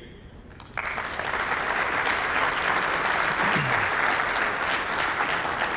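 Audience applauding, the clapping breaking out suddenly about a second in and then holding steady.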